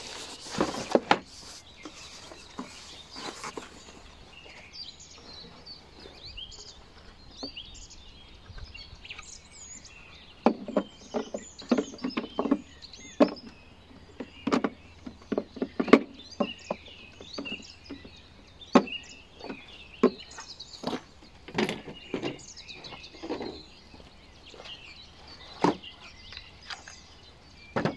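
Hard plastic parts of a Makita cordless lawn mower and its grass catcher being handled, giving irregular clicks and knocks, a cluster of them in the first couple of seconds. Birds chirp faintly in the background.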